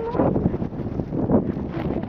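Strong gusty wind buffeting the microphone: a loud, rumbling rush that rises and falls with the gusts.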